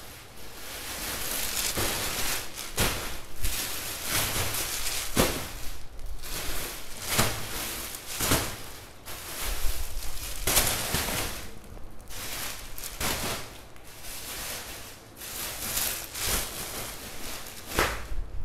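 Clear plastic bags crinkling and rustling in irregular bursts as shoes wrapped in them are rummaged through and pulled out.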